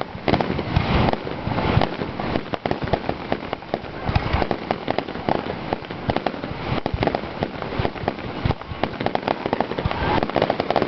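Fireworks display: a dense, continuous run of rapid crackles and bangs from bursting shells.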